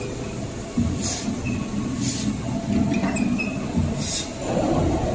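Automatic toilet paper roll packing line running: a steady machine hum and rumble with low thuds, broken by three short hisses.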